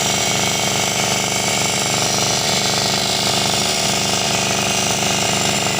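A power tool running steadily and loudly without a break.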